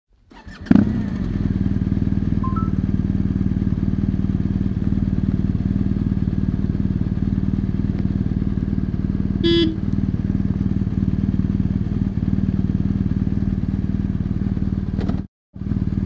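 The stock boxer-twin engine of a 2017 BMW R1200 GS Rallye idling steadily at an even pitch. A brief high-pitched sound about halfway through, and the sound cuts out for a moment near the end.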